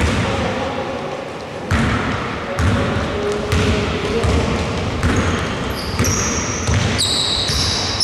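Basketball being dribbled on a wooden gym floor: a steady run of bounces that starts a couple of seconds in. High-pitched squeaks join near the end.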